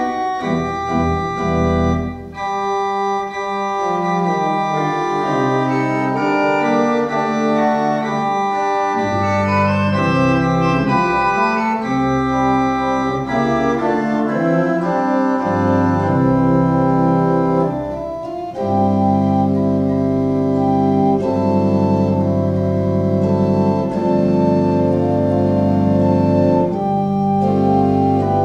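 Organ music: full sustained chords over a bass line that moves every second or two, with a brief drop in level about eighteen seconds in.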